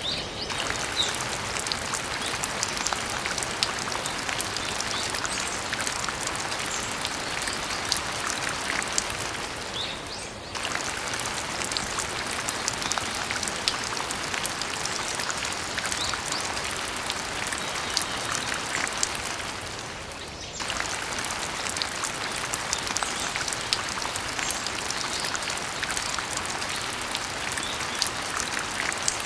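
Steady rain pattering, a dense hiss of many small drop hits. It drops out briefly twice, about a third and about two thirds of the way through, then resumes.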